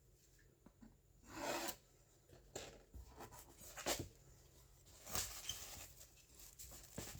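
Keyboard packaging being handled and opened: faint, irregular rubbing and scraping, with a sharper knock about four seconds in.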